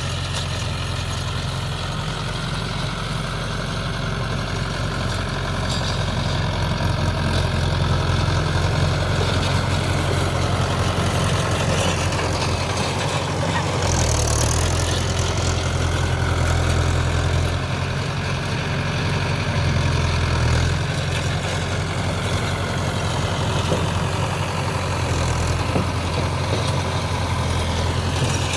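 Mahindra Yuvo 575 DI tractor's four-cylinder diesel engine running steadily, its note drifting a little up and down.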